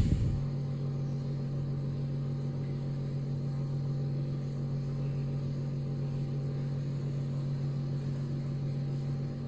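Steady low machine hum, with a brief knock right at the start.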